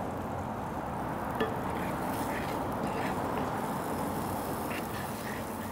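Plum slices, butter and sugar sizzling steadily in a hot cast iron skillet, with a few faint taps of a wooden spoon stirring them.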